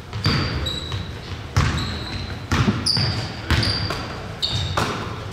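A basketball bouncing on a gym floor, about six thuds roughly a second apart that echo in the hall, with short high sneaker squeaks in between.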